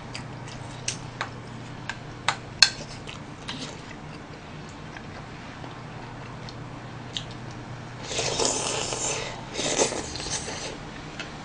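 Eating sounds: scattered light clicks of chopsticks and a spoon against a bowl, then two slurps near the end, each about a second long, over a steady low hum.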